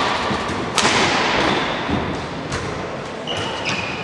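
A sharp thud about a second in, then a few fainter knocks, over a steady background din.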